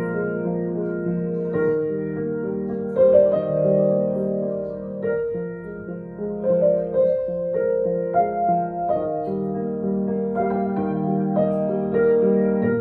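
Grand piano played solo, an improvisation in C minor marked mesto (mournful): held chords and melody notes that ring on into each other, a new chord struck about every second.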